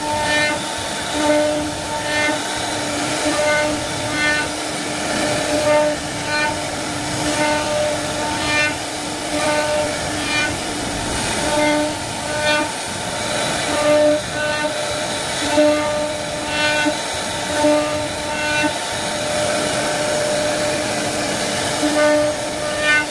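CNC wood carving router running and cutting fluting into wood: a steady machine whine with several held tones that swells about once a second as the cut repeats.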